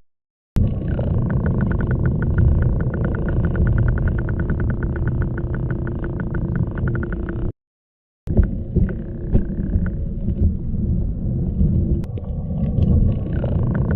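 Invented octopus sound effects, each a low rumbling noise: the first carries a rapid, even pulsing and cuts off suddenly, and after a short silence a second, rougher one follows with scattered clicks.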